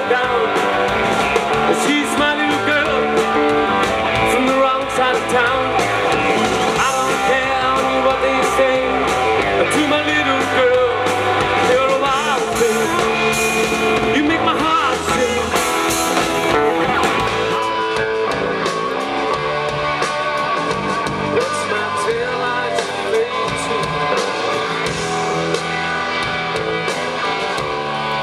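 Live rock and roll band playing a song, with electric guitar, electric bass and drums.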